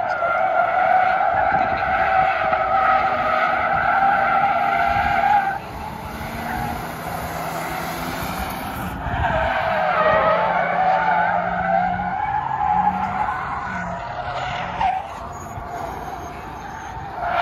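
Car tires squealing on asphalt in drift slides. A long steady squeal cuts off sharply about five and a half seconds in. Another starts around nine seconds, dips and rises in pitch, then fades, with the car's engine running underneath.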